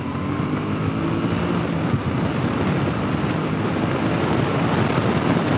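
Suzuki M50's 805 cc V-twin engine pulling hard as the motorcycle accelerates up to about 80 mph, with heavy wind rushing over the rider's microphone. The sound grows slightly louder as it goes.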